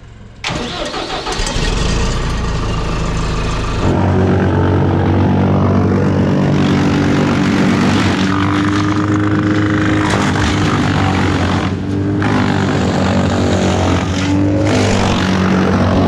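An engine starts about half a second in and builds up, settling after a few seconds into a steady, loud run. It dips briefly twice in the second half.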